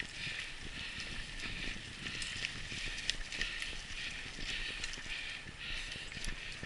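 Mountain bike riding over a dirt singletrack: a hiss of riding noise that swells and fades about twice a second, with scattered sharp rattles and clicks from the bike.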